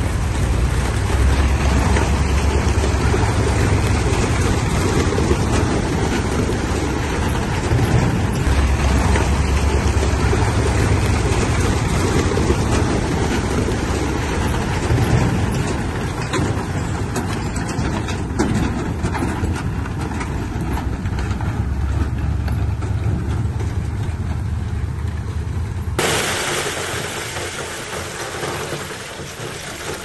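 Heavy diesel earthmoving machinery running and working, a continuous deep engine rumble with dense mechanical noise. About four seconds before the end the deep rumble cuts off abruptly and a thinner, hissier noise takes over.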